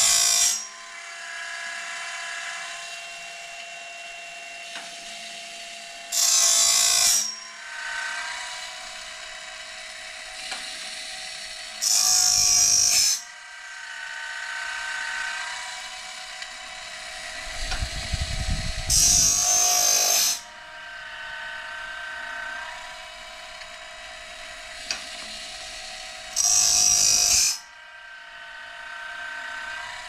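Sawmill bandsaw blade sharpener running: its grinding-wheel motor hums steadily while the blade is advanced tooth by tooth. About every six and a half seconds the stone grinds into a tooth with a loud, harsh rasp lasting about a second, five times in all, taking a light cut off each tooth.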